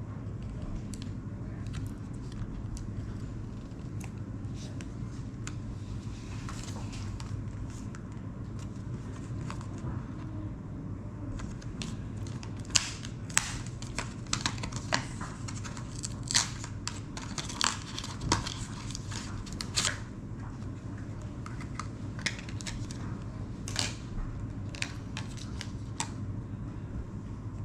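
Scattered light clicks and taps of small laptop parts and tools being handled during a Dell XPS 13 Plus repair, thickest in the middle stretch, over a steady low hum.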